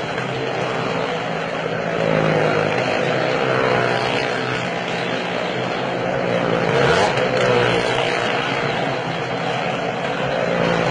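Car and motorcycle engines running as they circle the steep wall of a well-of-death arena: a steady engine drone whose pitch wavers slightly.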